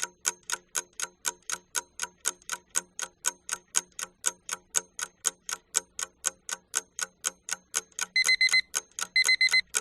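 Countdown timer sound effect: a clock ticking about four times a second, with quick electronic alarm beeps joining in near the end as time runs out.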